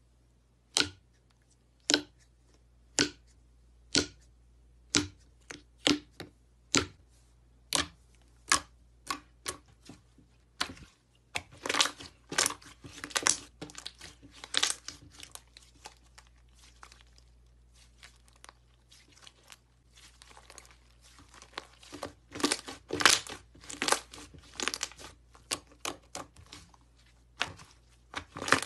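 Thick slime being handled: fingers pressing into it in a tub give single sharp pops about a second apart. After about ten seconds, stretching and folding the slime gives denser crackling and crinkling.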